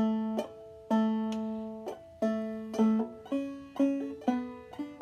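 Five-string banjo played clawhammer style, tuned to A, picking a slow phrase of single notes and brushes about one or two a second, each note ringing out and fading before the next.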